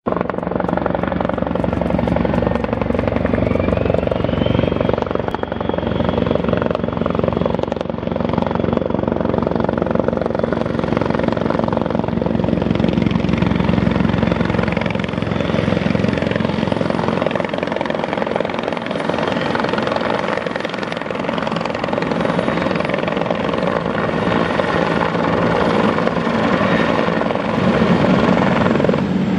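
Bell 412HP twin-turbine helicopter with a four-blade main rotor, flying in on approach and hovering down to land. Steady rotor beat under a thin, high turbine whine.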